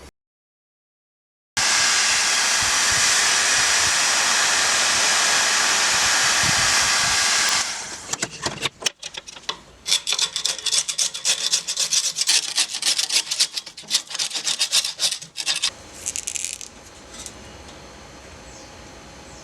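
Sanding of a wooden pinball cabinet's side, starting about a second and a half in: a loud steady rasping hiss for about six seconds, then a quick run of irregular scraping strokes that dies away a few seconds before the end.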